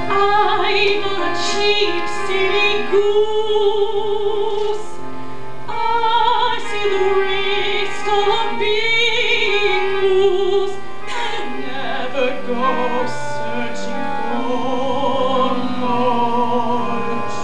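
Opera-style singing with a wide vibrato over a steady accompaniment of held chords and a low bass note.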